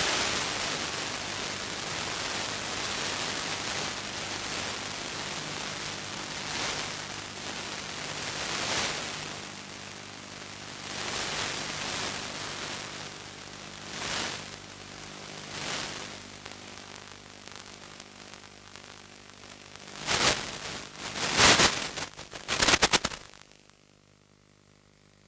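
Radio static hiss on the audio of a 5.8 GHz analog FPV video link, swelling and fading as the signal changes. A cluster of loud noise bursts comes near the end, then it drops to a faint hiss.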